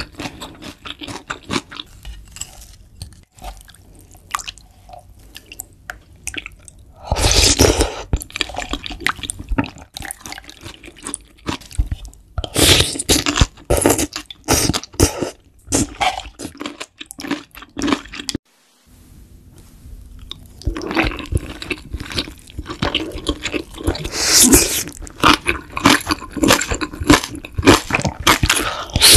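Close-miked eating sounds: noodles and soup slurped and chewed, with wet mouth sounds, in irregular bursts. The sound cuts out for a moment about two-thirds through.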